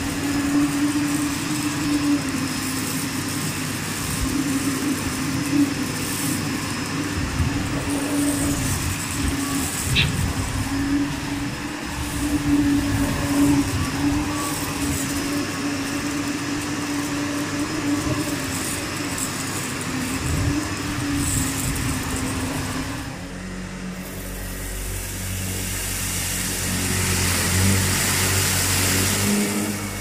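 SEBO Felix upright vacuum cleaner running on full suction with its roller brush off, pushed over a hard tile floor, with a steady hum. About 23 seconds in the sound changes as it works loop pile carpet with the roller brush on, and a louder hiss builds toward the end.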